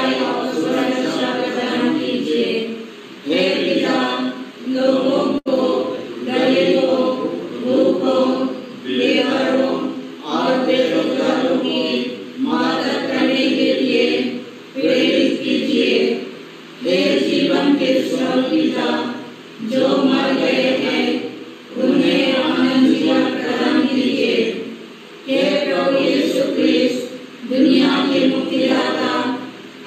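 A group of voices chanting a devotional prayer together in unison, in short phrases about two seconds long with brief pauses between them.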